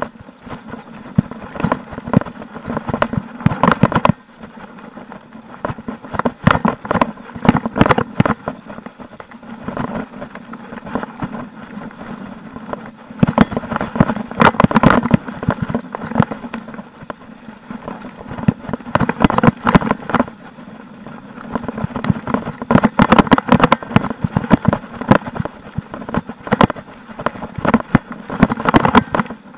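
Mountain bike rattling and clattering as it rolls down a rough dirt trail, with tyre noise and dense runs of sharp knocks over bumps that come in bursts several seconds long, between smoother, quieter stretches.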